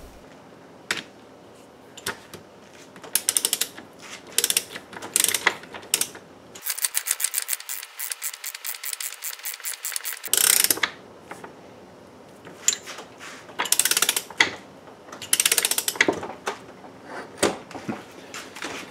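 Socket ratchet wrench clicking in short bursts, with one longer run of fast, even clicks in the middle, as the bolt holding fifth gear is run down into a VW 020 transmission before final torquing.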